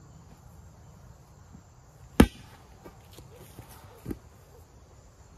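A wooden stick swung as a bat hits a rubber playground ball once, a sharp, loud strike a little over two seconds in. About two seconds later comes a softer, duller thump.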